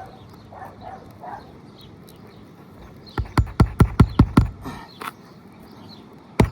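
Hammer driving a roofing nail into an asphalt shingle: a quick run of about eight sharp taps beginning about halfway in, then one more blow near the end.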